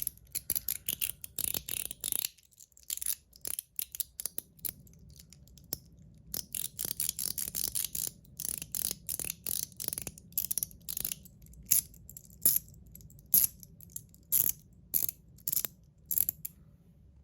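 01 EDC fidget slider being worked back and forth, its mechanical spring liner snapping the slide into place with many sharp clicks in irregular runs; the liner is fitted with weaker springs.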